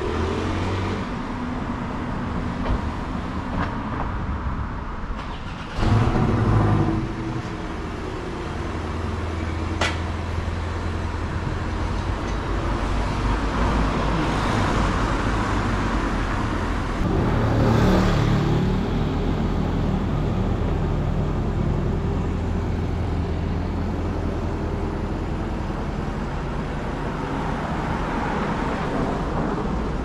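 City street traffic: vehicles driving past, the loudest passes about six seconds in and again around eighteen seconds, over a steady low engine hum.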